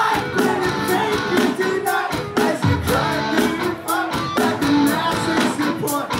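Rock band playing live at full volume: a singer over distorted electric guitars and a driving drum beat, heard through the venue's PA.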